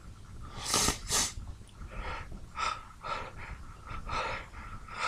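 A person's sharp, hitching breaths during a sneeze fit, winding up toward the next sneeze: two loud quick breaths about a second in, then a run of shorter, softer breaths.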